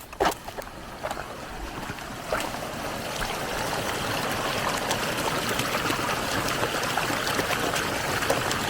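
Water draining out of a rice field in a steady stream, growing louder over the first three seconds and then holding even. A sharp click sounds just after the start.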